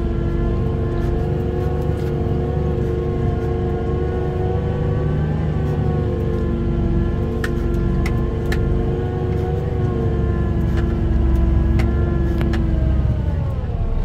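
Fendt 828 tractor's six-cylinder diesel running steadily under ploughing load, heard from inside the cab, with a few sharp clicks in the middle and latter part. Near the end the engine note falls.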